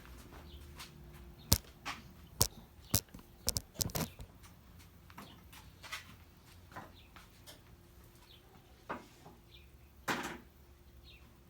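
Handling noise of objects being moved and set down: a quick run of sharp knocks and clatters starting about a second and a half in, then scattered lighter clicks and a longer rattle near the end.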